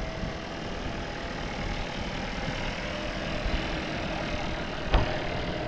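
Engine of a jeep towing a parasail along the beach, running steadily under a steady hiss. A single sharp knock sounds about five seconds in.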